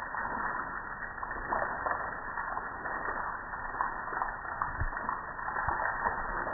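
Soap foam fizzing and crackling as it drains down a gas grill, a dense run of tiny pops, with a few dull knocks in the second half.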